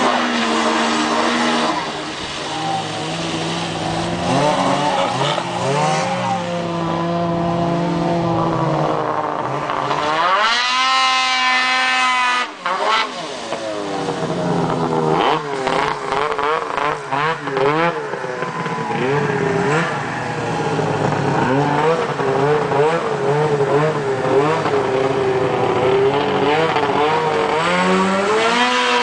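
Snowmobile engine through an MBRP aftermarket exhaust can, revving up and down as the sled is ridden, with a long climb to high revs about ten seconds in.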